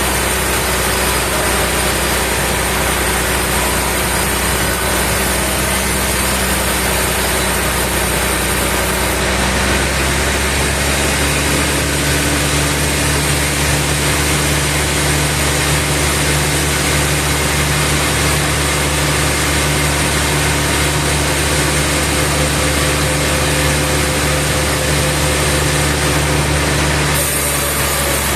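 Sawmill machinery engine running steadily and loudly. Its note changes about ten seconds in and again near the end.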